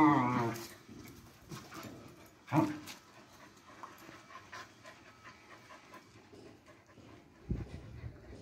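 Dogs play-fighting: a wavering growl-whine dies away in the first half second, then a single short bark comes about two and a half seconds in. Quieter dog sounds follow, with a low thump near the end.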